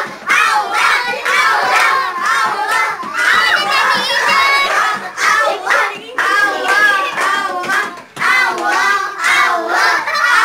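A group of young children shouting and squealing excitedly over one another, with one high-pitched shriek about four seconds in.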